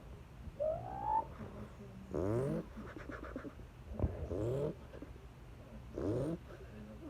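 A man imitating a 24-valve Cummins 5.9 diesel with his mouth: a short rising tone, then three rev-like bursts about two seconds apart, each rising in pitch.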